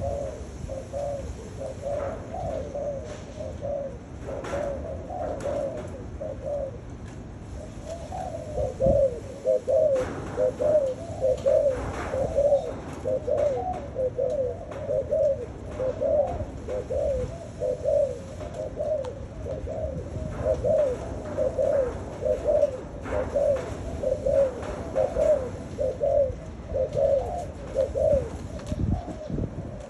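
Spotted dove cooing over and over in a long run of short, low coo notes, with a brief pause about seven seconds in.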